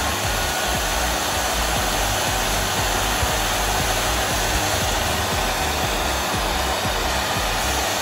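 Turbo fan of a mini cool-mist humidifier running at full speed, a steady and quite loud rush of air from its outlet.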